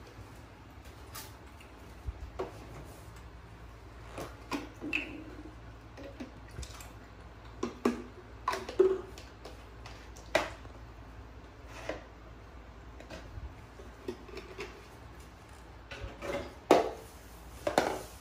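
Scattered small clicks, taps and knocks of a plate, crispy corn and a plastic bottle being handled on a plastic stool, over a low steady hum. The sharpest knocks come about halfway through and again near the end.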